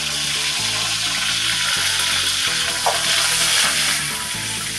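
Curry leaves, shallots and mustard seeds frying in hot sesame oil in a kadai, giving a steady, loud sizzle.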